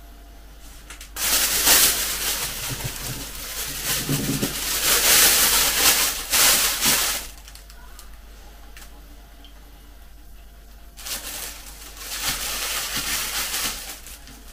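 Clear plastic roasting bag crinkling as it is handled, in two long stretches: one starting about a second in and lasting some six seconds, another near the end.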